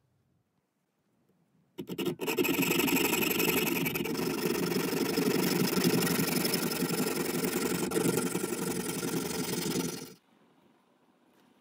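Fine-toothed hand saw cutting through thin brass tubing clamped in a vice: a steady sawing noise that starts about two seconds in, runs for about eight seconds and stops abruptly as the cut goes through.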